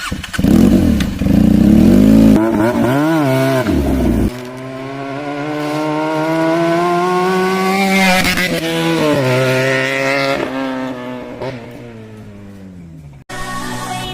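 Benelli TNT 300's parallel-twin engine revving hard in quick rises and falls, then a long pull where the note climbs steadily before falling away as the throttle eases off. The sound cuts off suddenly near the end.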